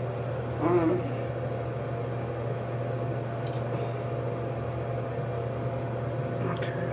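Steady low mechanical hum with faint steady tones above it, running throughout; about a second in, a brief murmur of a voice.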